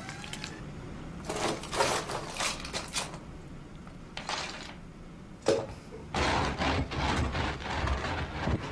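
A hand scraping and rubbing dry white powder across a board, giving uneven dry rasps that come thick and fast in the last few seconds, with a sharp knock about five and a half seconds in.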